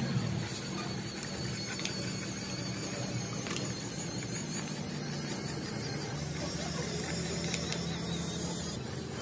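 Small DC motor of a homemade toy truck whirring steadily as the truck drives, with a few faint clicks.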